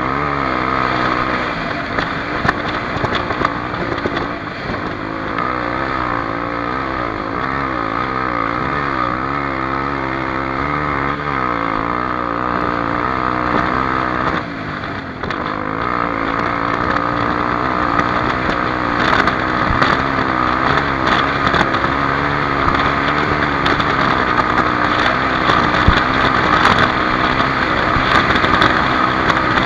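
Single-cylinder four-stroke engine of a Honda XR250 Tornado dirt bike running under throttle. Its pitch rises and falls repeatedly as the rider works the throttle, and it dips briefly about halfway through. It then runs steadier with wind buffeting.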